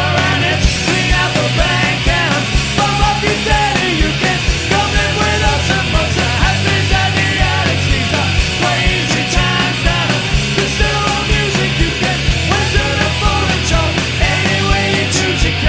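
A rock band playing live: a fast, steady drumbeat under loud electric band accompaniment, with a lead vocal singing over it.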